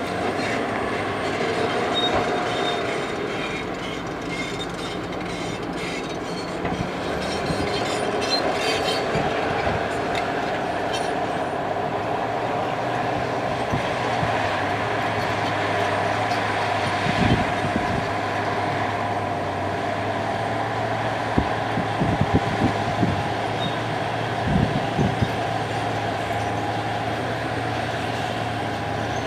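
Heavy earth-moving machinery at work: a steady engine drone with metallic clatter, and a few short knocks in the second half.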